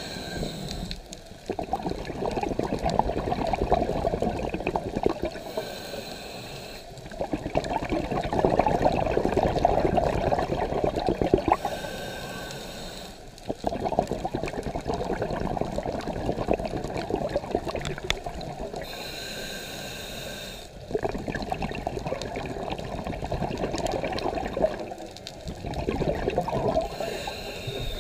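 Scuba diver breathing through a regulator underwater, about five breaths: each a short hiss of inhalation followed by several seconds of loud bubbling exhalation.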